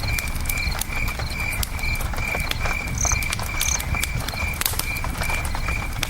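Campfire crackling with scattered sharp pops, over the low steady rush of a river and a cricket chirping in an even rhythm, about two or three chirps a second. Two brief high-pitched notes sound about three seconds in.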